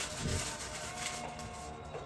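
Background music playing softly.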